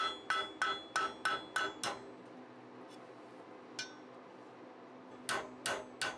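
Hand hammer striking a red-hot flat bar over the horn of an anvil, about three ringing blows a second. The blows stop about two seconds in, with one light tap near four seconds, and the hammering starts again near the end.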